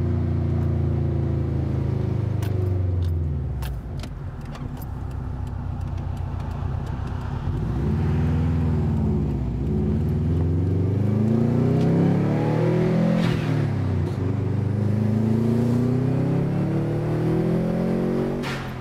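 Subaru WRX's turbocharged flat-four heard from inside the cabin as the car drives. The engine note falls about three seconds in, then climbs several times with short dips between, as at gear changes. A brief burst of noise comes as the throttle closes near the end, from the blow-off valve venting.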